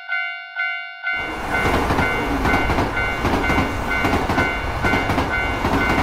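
Japanese level-crossing alarm bell ringing about twice a second. About a second in, a train's rumble and rail clatter starts and covers it, with the bell still ringing through.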